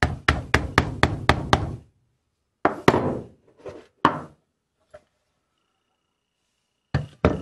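Wooden wedge of a D R Barton plow plane being tapped down to seat it and lock the iron. A quick run of six sharp knocks comes first, then a few more scattered knocks, and two close together near the end.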